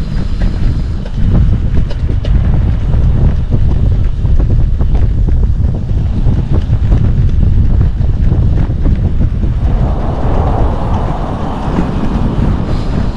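Wind buffeting the microphone in a heavy, gusty rumble, as when moving at speed outdoors. About ten seconds in, a higher rushing hiss joins it.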